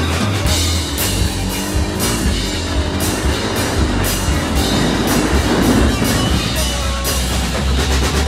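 Rock music with a drum kit keeping a steady beat.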